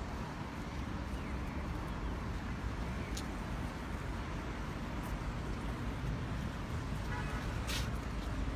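Steady road traffic noise from passing cars, with a few brief ticks.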